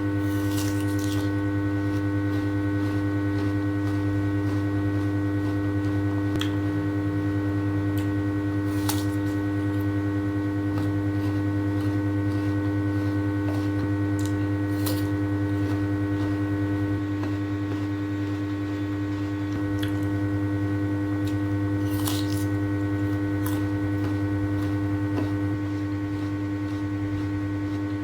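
Steady electrical-sounding hum, a strong low tone with several fainter higher tones over it, with a few short sharp clicks or crunches standing out now and then.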